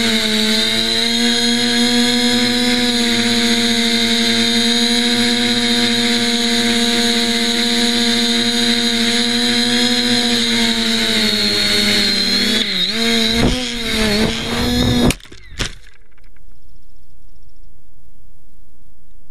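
An FPV plane's motor and propeller, heard from the onboard camera, run with a steady high whine. About twelve seconds in, the pitch starts wavering and dipping as the aircraft suddenly rolls over. About fifteen seconds in come a couple of sharp knocks as it crashes, and the motor cuts off.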